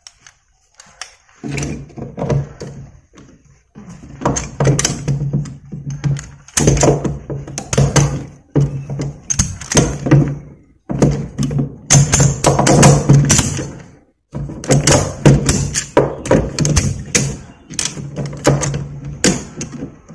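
Ratchet tie-down strap being tightened by hand: the steel ratchet handle is worked back and forth in repeated bursts of rapid clicking and clacking as the pawl skips over the spool's toothed wheel, with short pauses between strokes.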